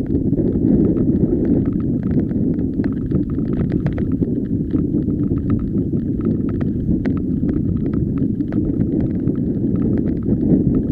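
Mountain bike rolling fast over a loose, rocky gravel track: a steady low rumble of tyres and shaking bike, with many quick clicks and rattles from stones and parts of the bike.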